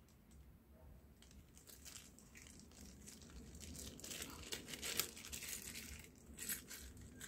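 Small clear plastic bag crinkling and tearing as it is opened by hand: faint rustles, sparse at first and busier in the second half.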